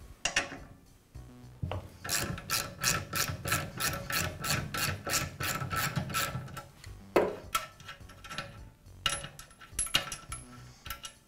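Socket ratchet wrench loosening the nut on a lawn edger's height adjustment lever. It clicks in an even run of about four clicks a second, with a louder click partway through and scattered clicks near the end.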